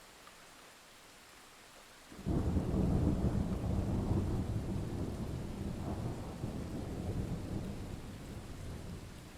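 Thunder over steady light rain: about two seconds in, a loud clap breaks suddenly and rolls on as a deep rumble, slowly dying away near the end.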